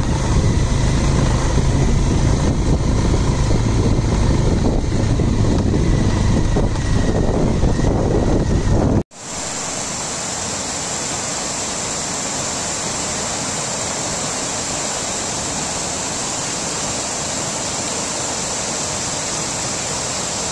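Motorcycle engine running steadily while riding a rough road. About nine seconds in it cuts off abruptly to the quieter, steady rush of a swollen, fast-flowing river.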